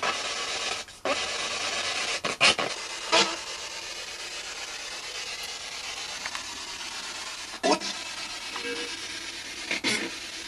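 Camera handling noise: rubbing against the microphone and several sharp knocks as the camera is picked up and moved, over a steady hiss that eases off after about three seconds.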